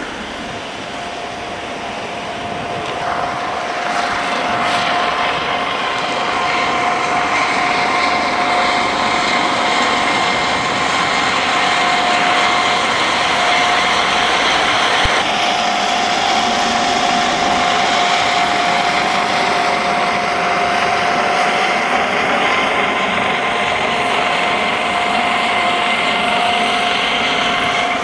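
Helicopter running: a steady high turbine whine over the rushing noise of the rotor. It grows louder over the first several seconds, then holds steady.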